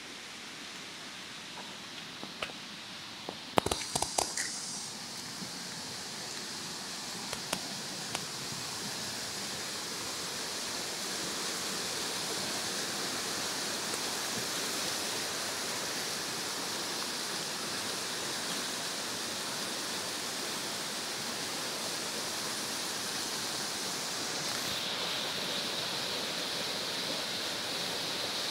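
Swollen Tequecholapa river in flood, rushing water making a steady hiss that grows louder over the first several seconds and then holds. A cluster of sharp clicks and knocks comes about three to four seconds in, with a couple more near eight seconds.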